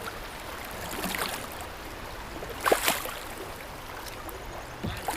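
Water sounds on a kayak on a flowing river: a steady wash of moving water with a few short splashes, the loudest about two and a half seconds in.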